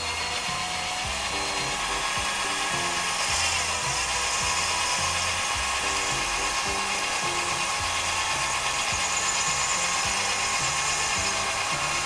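Cordless drill spinning a cylinder hone inside the bore of a 1973 Mobylette 40T moped's two-stroke cylinder barrel: a steady motor whine with the hone working against the cylinder wall to lay down cross-hatching. Background music with a stepping bass line plays underneath.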